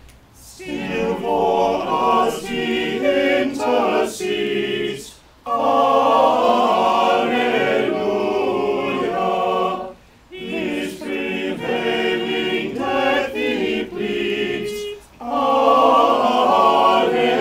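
Small choir singing unaccompanied, in phrases of about five seconds each, with short breaks for breath between them.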